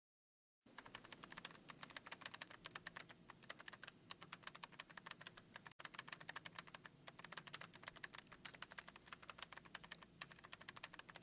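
Fast typing on a computer keyboard: a quick, continuous run of key clicks that starts about a second in, with a momentary break about halfway.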